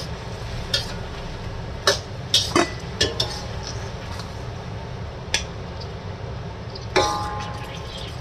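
Metal spatula clinking and scraping against a wok as pieces of glazed chicken are turned and lifted out. There are scattered sharp clanks; the loudest, about seven seconds in, rings briefly. A steady low hum runs underneath.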